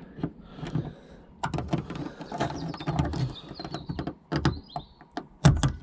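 Plastic clicking and rattling as a cargo lamp is connected and pressed into its plastic trim panel: many separate sharp clicks, with a few short squeaks in the middle.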